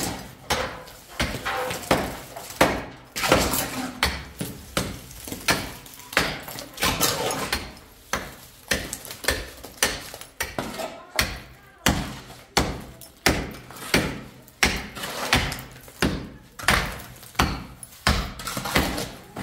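Hammer striking a plastered brick wall in steady repeated blows, about one and a half a second, knocking and chipping the plaster.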